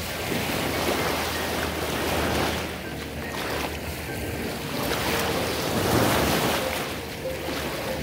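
Small waves lapping and washing onto a shallow sandy lake shore, the wash swelling and easing every couple of seconds.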